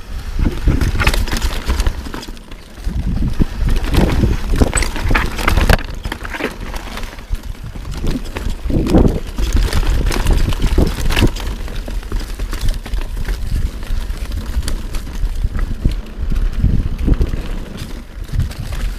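Yeti SB6c mountain bike riding fast down a rough dirt trail: tyres rolling over roots and rocks, with irregular knocks and rattles from the bike as it bounces over the bumps. A heavy low rumble of wind and jolting runs underneath on the chest-mounted camera.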